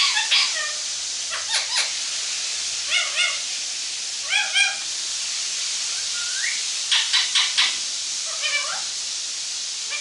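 Rose-ringed parakeet calling: about a dozen short, squeaky calls in small clusters, one rising in pitch a little past the middle, over a steady hiss.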